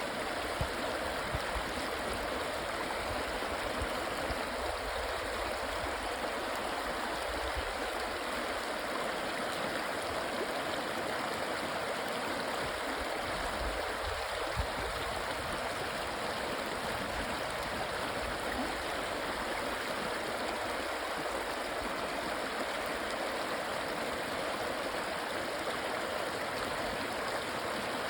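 A river flowing, a steady, unbroken rush of running water.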